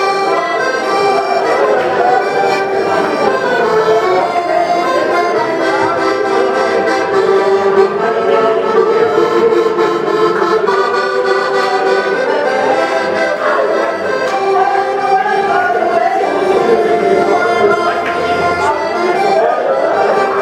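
An accordion playing a continuous melody over held chords.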